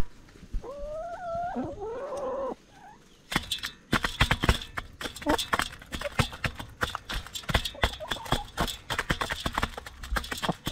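Backyard hens: two drawn-out, wavering calls in the first couple of seconds, then a rapid run of sharp taps from beaks pecking at food.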